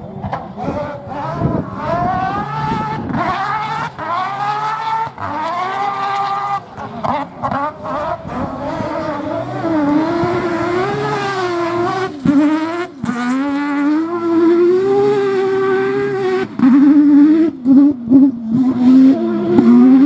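Rally car engine revving hard on a loose stage, its pitch climbing and dropping again and again with short breaks as the driver lifts and changes gear. It gets louder in the last few seconds, with choppy on-off throttle bursts.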